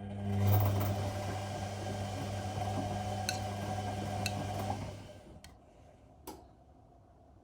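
Whirlpool Indiana 1400 washing machine turning its drum during the wash: a steady motor hum over the churn of the load, running about five seconds and then stopping, followed by a couple of light clicks.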